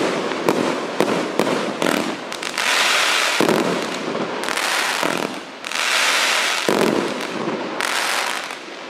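Firework cake (battery) firing: rapid sharp pops for the first two seconds or so, then four separate bursts of dense crackle, each about a second long, dying down near the end.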